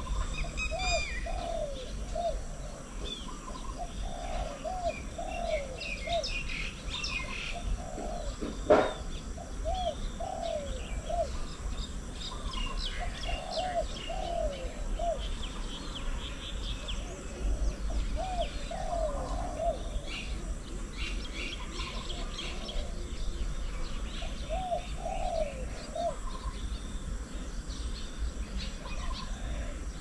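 Spotted dove cooing in short phrases of two or three low coos, repeated every few seconds, over the higher chirping of small birds. A single sharp knock comes a little under nine seconds in.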